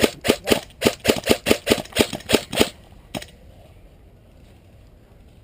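Airsoft rifle firing a rapid string of sharp shots, about six a second, for nearly three seconds, then a single shot a moment later.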